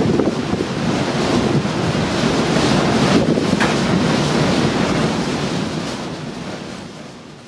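Strong gale wind buffeting the microphone, with the rush of the sea beneath it, in uneven gusts. It fades out over the last couple of seconds.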